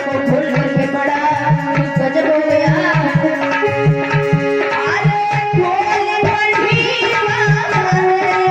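A woman singing a Hindi devotional song through a microphone, with hand drums playing a steady rhythm and held instrument notes underneath.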